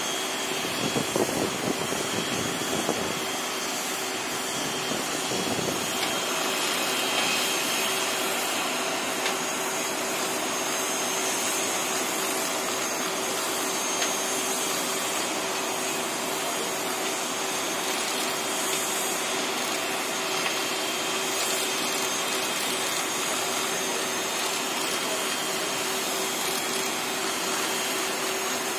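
A parked airliner's turbines running: a steady rushing hiss with a constant high whine.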